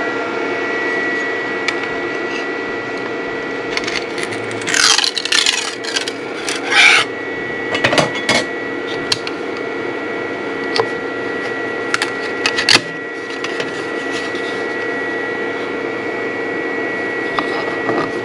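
FLSUN delta 3D printer running near the end of a print: a steady whine from its fans and stepper motors, with scattered light clicks. Between about four and eight seconds in come a few brief louder sweeping moves of the steppers.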